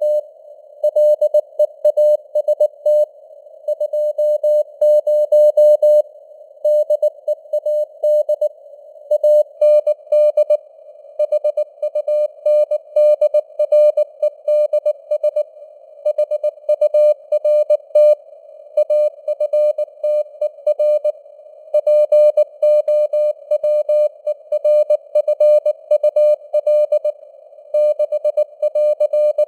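Morse code (CW) sent at 19 words per minute: a single steady tone keyed on and off in dots and dashes. It sits in a narrow band of simulated receiver hiss, and the signal strength fades up and down (QSB).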